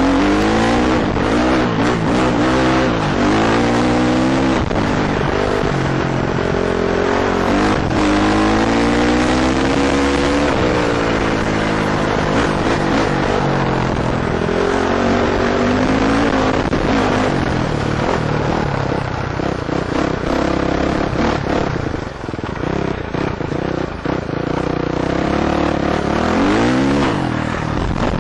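KTM 450 four-stroke dirt bike engine riding a trail, revving up and easing off again and again as the rider works the throttle and gears.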